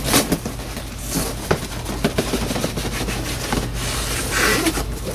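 Crushed corrugated cardboard shipping box being handled and slid off an inner product box: rubbing, scraping and crinkling cardboard with many short knocks and taps, and a louder scrape about four and a half seconds in.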